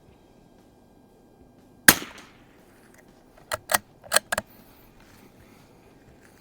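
A single .22 rimfire rifle shot from a Mossberg 44US bolt-action rifle, a sharp crack about two seconds in with a brief echo. About a second and a half later come four or five quick metallic clicks of the bolt being worked to eject the case and chamber the next round.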